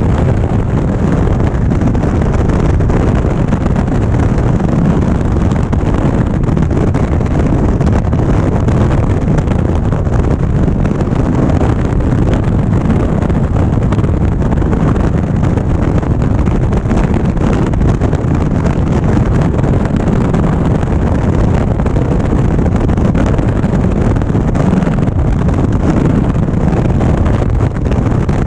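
Steady wind buffeting on the microphone of a 2016 Indian Springfield motorcycle under way at road speed, mixed with the bike's engine and road noise.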